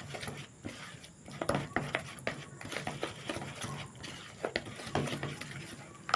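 Plastic spatula stirring and scraping a thick flour bait dough around a metal bowl, with irregular scrapes and knocks against the bowl.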